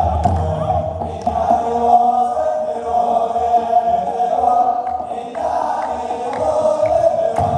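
Men's choir chanting an Orthodox Tewahedo hymn in unison, with long held notes. Kebero drums beat in the first second or so, then mostly drop out under the chant.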